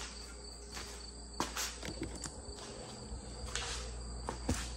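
Steady high insect chirring, with several light clicks and knocks from parts being handled.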